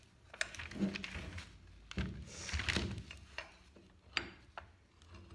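Plaster piece mold being handled and taken apart by hand: hard plaster pieces clicking and knocking against each other, with a stretch of scraping about two to three seconds in.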